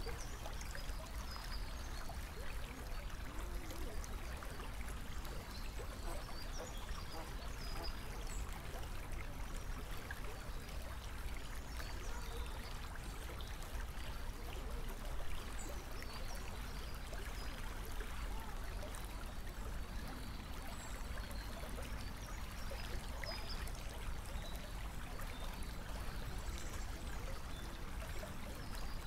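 Steady trickling and running of flowing water, with scattered faint high chirps over it.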